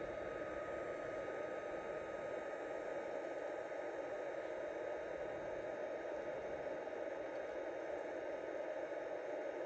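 Steady, even background hiss with a faint constant high whine; nothing starts or stops.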